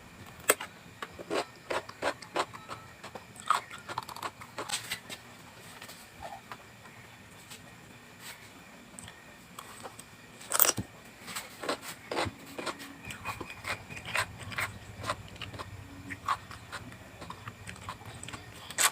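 Close-up eating sounds: irregular crisp crunches and wet chewing clicks of raw vegetables being bitten and chewed, coming in clusters, with one loud crunch about ten seconds in.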